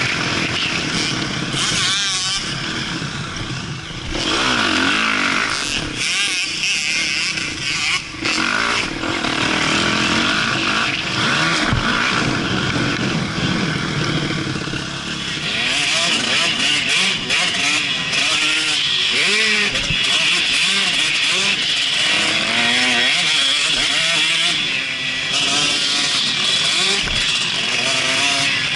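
Motocross bike engine ridden hard, its pitch rising and falling with throttle and gear changes, heard from a camera on the bike with wind rushing over the microphone. The engine note changes about halfway through.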